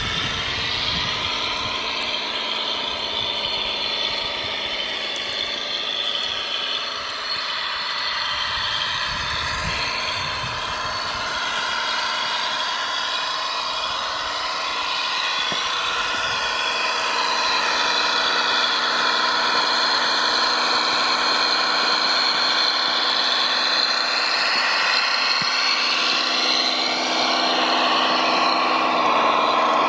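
Electric drive motors and gearboxes of a radio-controlled Claas Xerion 5000 model tractor whining, the pitch rising and falling as it speeds up and slows down over a steady low hum, a little louder in the second half.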